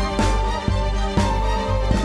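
Theme music with a steady beat, about two beats a second, with a stronger hit about once a second.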